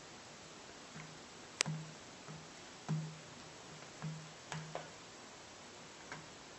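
Metal tweezers picking and prying at the rubber screw covers on a netbook's plastic screen bezel: about ten faint, irregular clicks and taps, each with a short low ring, the sharpest about one and a half seconds in.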